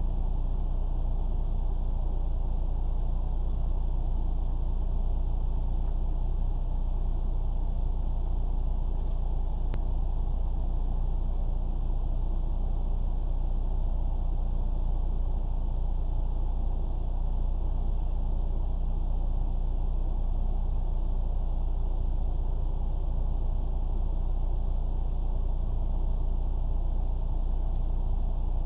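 Car engine idling steadily with the car standing still, a low even hum heard from inside the cabin.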